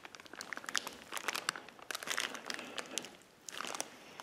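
Clear plastic bag around a new brake rotor crinkling as a gloved hand handles it: a faint string of short, irregular crackles with a brief pause a little past three seconds in.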